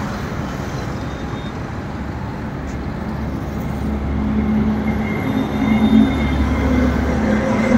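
Steady motor-vehicle noise, with a low hum that grows stronger about four seconds in.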